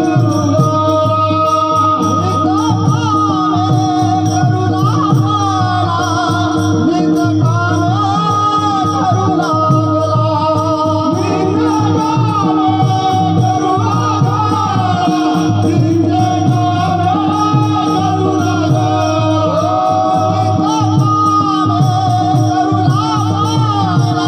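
Devotional kirtan bhajan: voices singing over a steady held drone, with fast, even rhythmic percussion throughout.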